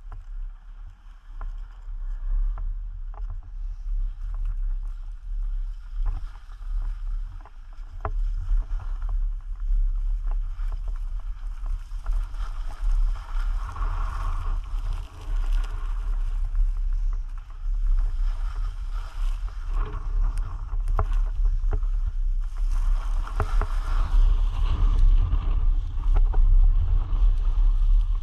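Wind rumbling on an action camera's microphone, with a rushing, scraping hiss and scattered clicks over it, growing louder in the second half.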